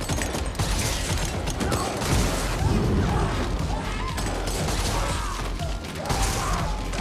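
Action-film sound mix: repeated shotgun shots firing dragon's breath incendiary rounds, with the mechanical clacking of the shotgun's action being worked, over a music track.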